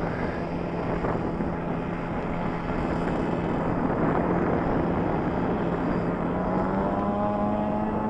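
Propeller-driven RC model aircraft engine droning overhead at a steady pitch, rising somewhat from about six seconds in, with wind noise on the microphone.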